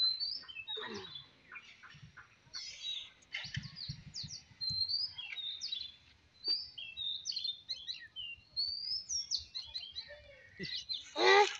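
Birds chirping and twittering outdoors in many short, quick calls, with a louder call that sweeps downward near the end.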